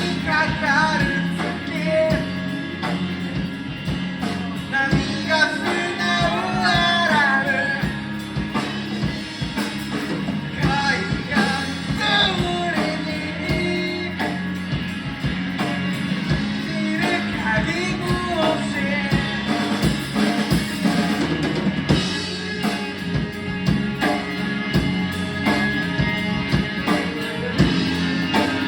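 A rock song played by a band: a singer's voice over drums and guitar.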